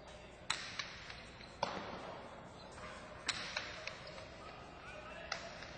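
Jai-alai rally: the hard pelota cracking sharply against the fronton walls and cestas, four loud hits with a few lighter ones between, each ringing briefly in the hall.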